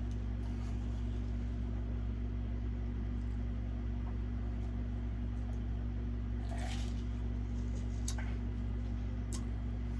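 Steady low electrical hum, with a few faint brief rustles and clicks in the second half.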